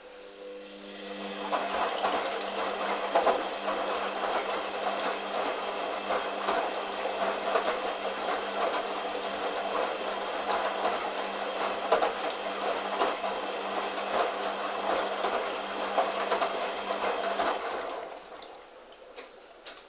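Hoover washing machine running with water rushing and splashing, starting about a second in, holding steady and then cutting off abruptly near the end; a faint hum is heard at the start.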